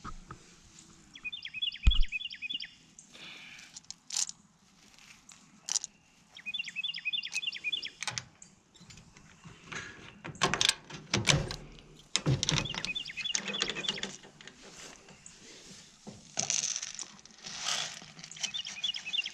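A songbird repeats a short phrase of quick high notes four times, about every six seconds. Over it come rustling, clicks and knocks of handling, with a sharp thump about two seconds in as the loudest sound.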